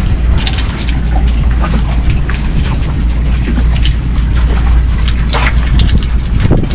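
Wind buffeting the microphone with a steady low rumble, with scattered clicks and knocks from hoses and fittings being handled.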